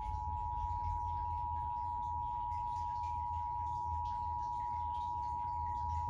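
Emergency Alert System attention signal heard from a television's speaker: the steady two-tone 853 and 960 Hz sine pair sounding continuously. It marks the start of an EAS alert, here a Required Monthly Test.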